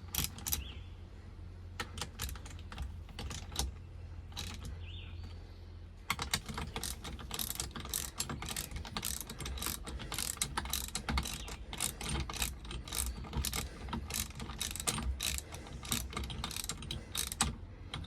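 Hand ratchet wrench clicking as the steering wheel puller's bolts are run in and tightened. A few scattered clicks at first, then quick, steady ratcheting from about six seconds in until near the end.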